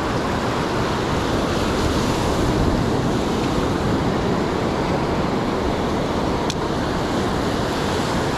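Ocean surf breaking and washing up over the sand: a steady rush of waves and foam.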